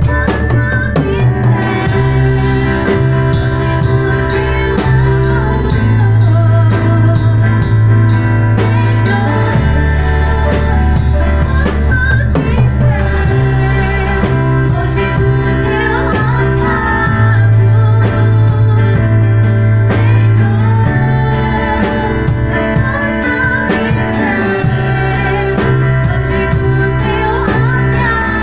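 A band playing a song: bass notes changing every few seconds, a drum kit keeping time, and guitar, with singing over it.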